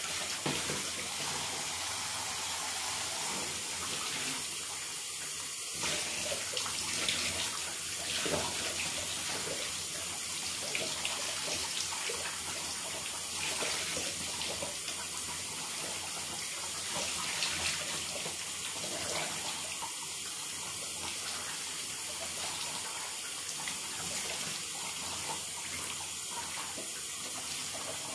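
Handheld shower spraying water onto a person's head and shoulders: a steady rush of running water, swelling a little now and then.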